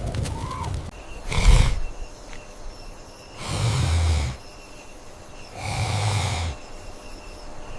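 Three rough, noisy animal calls, each under about a second long: the first short and loudest, the other two longer, about two seconds apart, over a steady low rumble.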